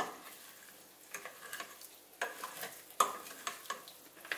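Plastic cooking spoon stirring broccoli florets and vegetable broth in a stainless steel pot, with irregular knocks and scrapes against the pot; the loudest knocks come right at the start and about two and three seconds in.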